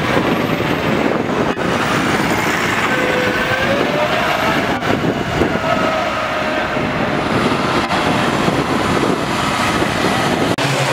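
Mercedes-Benz four-axle tipper truck driving past close by on a sand track: diesel engine running with tyre and body noise, and a few whining tones that slowly rise and fall. The sound breaks off briefly a few times where the footage is cut.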